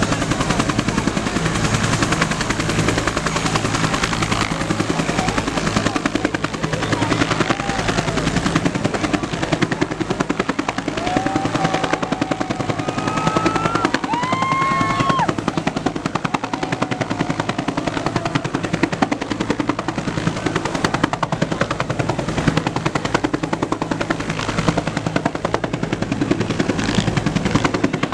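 Bell UH-1 Huey helicopter running close by, its two-bladed main rotor beating rapidly and steadily over the turbine's hum. A few short whistling tones sound about halfway through.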